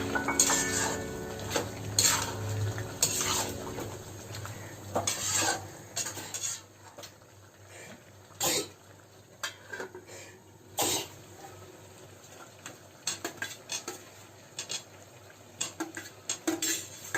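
Kitchen utensils knocking and clinking against pots and dishes in scattered separate strikes, with a few sharper clinks around the middle.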